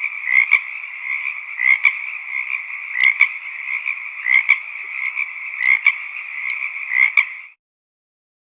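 Chorus of frogs croaking in a dense, continuous trill, with a louder pair of croaks standing out about every second and a half. About three-quarters of the way through the sound cuts off abruptly into dead silence.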